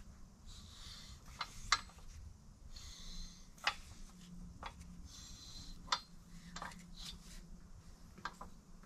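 BMW crankshaft turned slowly by hand in the engine block while resting on its two end main bearings: scattered light metallic clicks and short stretches of faint rubbing as it rotates. The loudest click comes a little under two seconds in.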